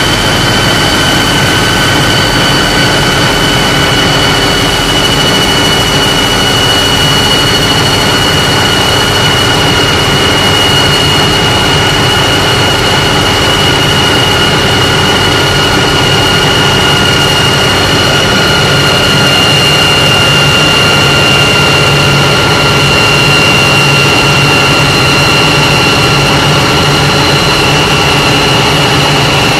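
Case IH Magnum tractor's diesel engine running hard under load at around 1,800–2,000 rpm, with a steady high whine over the engine's rumble that sinks slightly in pitch as the engine speed sags.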